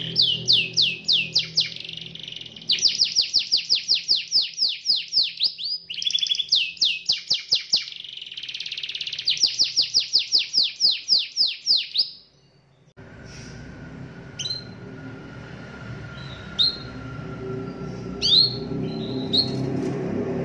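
Domestic canary singing rapid rolling trills of high, downward-sweeping notes, about seven a second, in several phrases for about twelve seconds. After a short break, a few single short chirps sound over a steady background hum.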